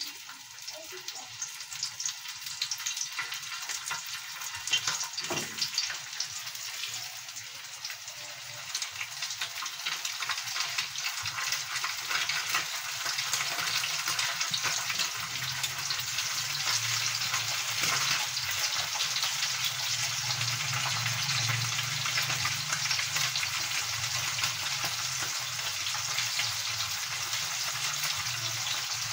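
Flour-coated fish frying in hot oil in a pan, a steady sizzle with dense crackling that grows louder from about ten seconds in as more pieces go into the pan.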